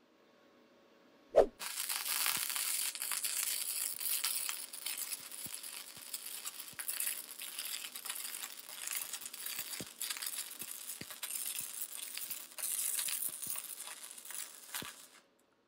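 Gasless flux-core wire welding thin-wall galvanized steel tubing with a YesWelder YWM-200 welder. A sharp pop as the arc starts about a second and a half in is followed by a continuous crackle for about thirteen seconds, which stops suddenly near the end.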